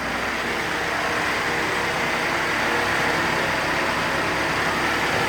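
Car engine idling under load from the headlights and air conditioning, with the electric cooling fans running. The fans' rush swells over the first two seconds and then holds steady.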